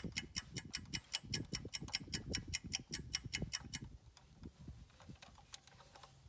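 Gear handling while a rifle magnifier is refitted on its quick-release mount: rustling and small low knocks. Over it runs a rapid, even ticking, about five ticks a second, which stops about four seconds in.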